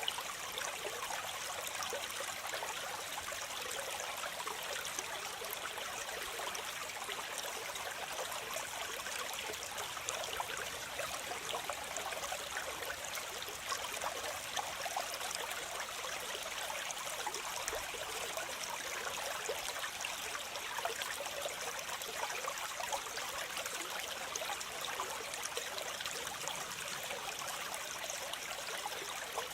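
Waterfall: water falling and splashing steadily, an even hiss of water with little low rumble.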